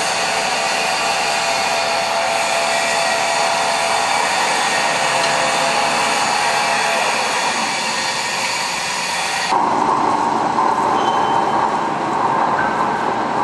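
Small CNC pipe threading lathe running, with a steady, loud hissing machine noise. About two-thirds of the way through, the sound changes abruptly: the high hiss drops away and a harsher, lower noise takes over.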